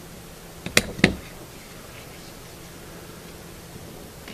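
Hand-held hole punch squeezed through the paper mask: two sharp clicks about a quarter second apart, about a second in, then faint room tone.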